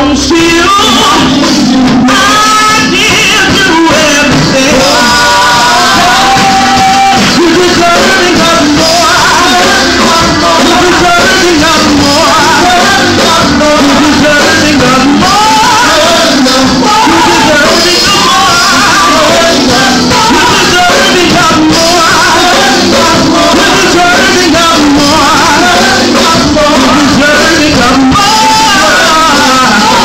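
Live gospel worship song: a female lead singer with male backing voice over a church band of keyboard, drum kit and congas, playing loud and steady throughout.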